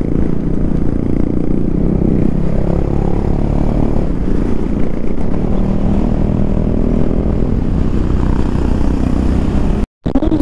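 KTM Duke 390 single-cylinder engine running steadily at road speed, with heavy wind rush on the microphone.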